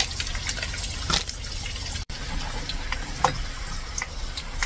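Pot of water bubbling at the boil with a block of instant noodles in it, a steady watery hiss with scattered light clicks and crackles. The sound drops out briefly about two seconds in.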